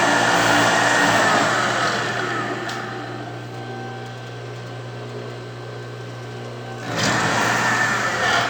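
Sewing machine motor driving a homemade wood lathe, its speed set by the foot pedal: it runs fast, slows down about two to three seconds in, and speeds up again abruptly about seven seconds in.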